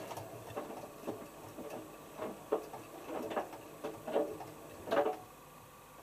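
Hotpoint HF8B593 washing machine's drum just after its final spin: a run of irregular soft knocks and rattles from the drum and the damp load as it begins turning slowly for the anti-crease phase, the loudest knock near the end before it goes quiet.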